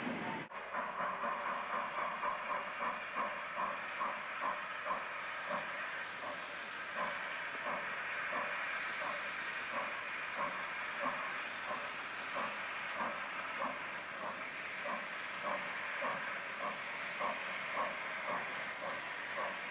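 Two steam locomotives, an MZA 1700 and a green Mikado, double-heading a train and working steadily towards the listener. Their exhaust beats come about two a second over a steady hiss of steam.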